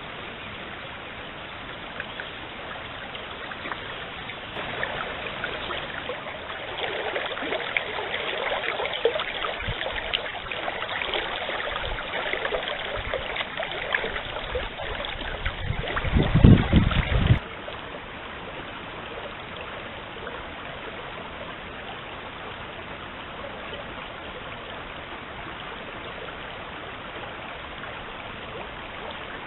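Stream water running steadily. It grows louder and more splashy for a stretch, then a low rumble rises and cuts off suddenly after about seventeen seconds, leaving a quieter, even flow.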